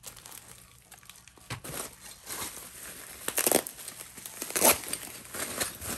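Plastic bubble-wrap packaging crinkling and rustling as it is handled and pulled open, irregular and uneven, with the loudest crinkles about three and a half seconds in and again about four and a half seconds in.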